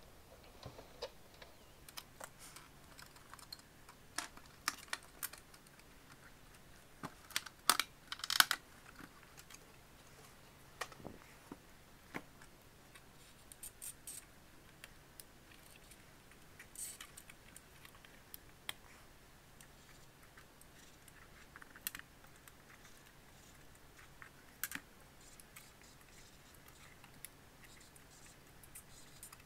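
Plastic clips and housing of a 2005 Ford Mustang instrument cluster clicking and snapping as the bezel and lens are pried off and the cluster is taken apart. The clicks are light and scattered, with a burst of louder snaps about seven to eight and a half seconds in.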